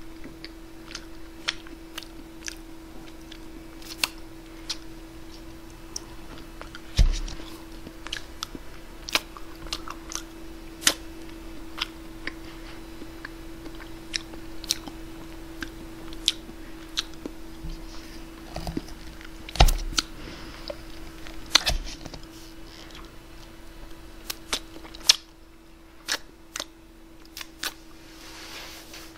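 Close-miked eating of cherry jubilee ice cream with a small plastic spoon: scattered sharp mouth clicks, smacks and spoon taps, over a steady electrical hum. A few heavier knocks stand out, about 7, 20 and 22 seconds in.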